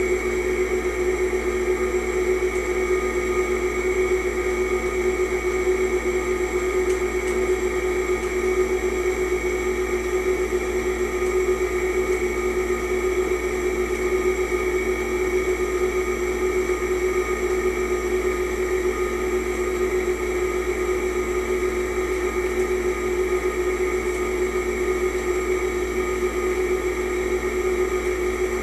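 Steady machine hum made of several fixed tones, unchanging throughout.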